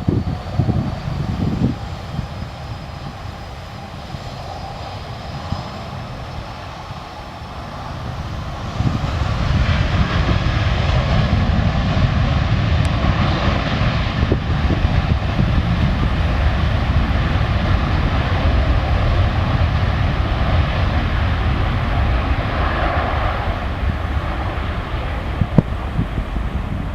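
An airliner's engines: a steady high whine at first, then from about eight or nine seconds in a loud, heavy engine noise that holds steady as the aircraft runs close by.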